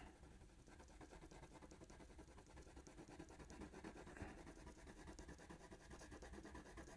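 Faint scratching of a colored pencil on drawing paper, a steady run of quick short hatching strokes.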